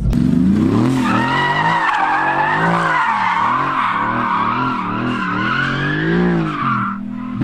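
Mercedes-AMG GT's twin-turbo V8 revving up and down about six times as the car drifts sideways, with the rear tyres squealing in a steady screech from about a second in. The tyre squeal cuts off near the end while the engine keeps running.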